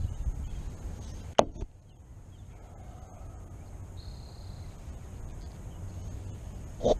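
Hands working a Shimano Curado baitcasting reel right by the microphone: rubbing and handling rumble, with a sharp click about a second and a half in and another near the end.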